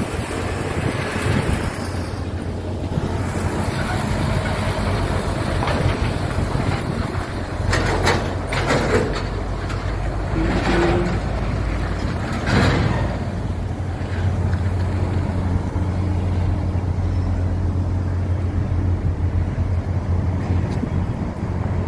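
A steady low engine hum with an even outdoor noise over it, and a few brief knocks about eight and twelve seconds in.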